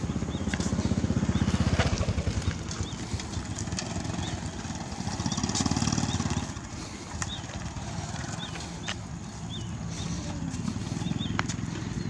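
Footsteps in sandals on a concrete path, with short high chirps about once a second. A low rumble runs underneath, swelling early and again around the middle.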